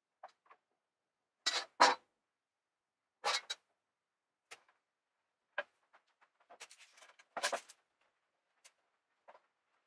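Wooden battens and a steel square being handled on a plywood panel: separate knocks and clacks of wood and metal set down on the board, a loud pair about one and a half seconds in and another pair about three seconds in, then a run of lighter taps and scraping a little after the middle.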